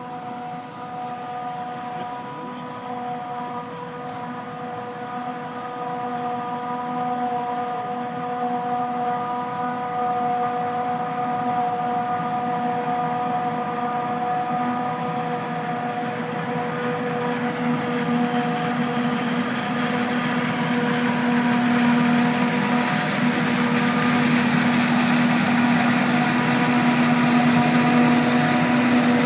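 Claas Jaguar 850 forage harvester chopping maize for silage: a steady, even machine whine with a hiss building over it, growing steadily louder.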